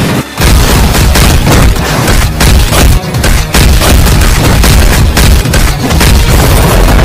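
Rapid flurry of heavy punch-impact sound effects and deep booms, many hits a second, starting about half a second in.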